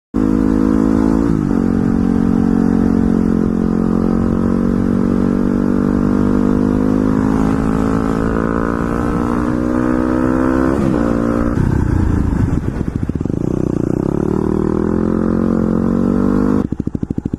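A motor vehicle engine runs at a steady pitch for about ten seconds, with two brief dips in pitch, then wavers in pitch. Near the end a sudden cut brings in an engine idling with a fast, even pulse.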